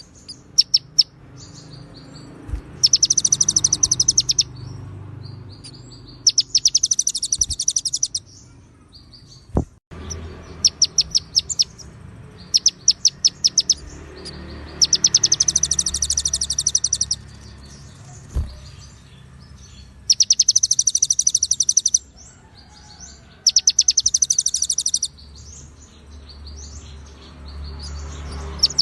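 Songbird song from a murai batu training track: bursts of very rapid, high trills, each about a second or two long, repeating every few seconds, with short chirps between them.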